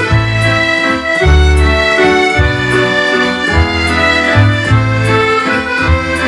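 Scottish dance-band waltz played on piano accordion and MIDI accordion with keyboard and drum kit: a sustained, reedy accordion melody over long bass notes.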